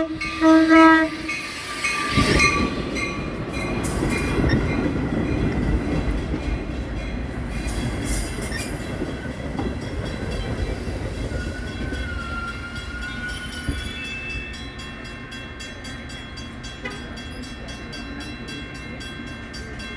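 Metra commuter train giving a short horn blast, then passing with a heavy rumble of wheels on rail. The rumble is loudest a few seconds in and slowly fades away.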